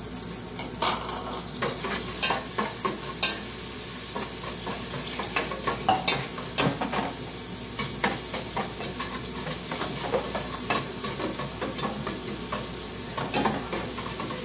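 Seasoning sizzling in hot oil in an aluminium pot, sautéed as it is stirred, with a metal spoon scraping and clicking against the pot many times.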